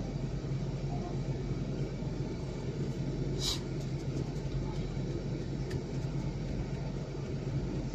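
Jeep Grand Cherokee's 5.7-litre V8 idling, a steady low rumble heard from inside the cabin, with a single sharp click about three and a half seconds in.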